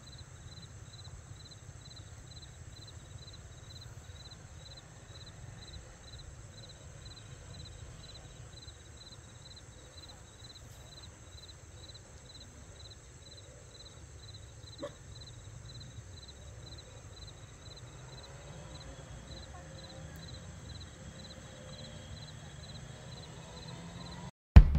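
Night insects: a steady high hum with an insect chirp repeating about twice a second, over a low steady rumble. A single short knock about fifteen seconds in.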